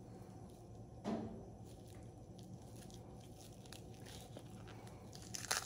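Quiet hand handling of raw beef ribs as the thin membrane is peeled off the back, with a brief sharp sound about a second in and crackly tearing near the end.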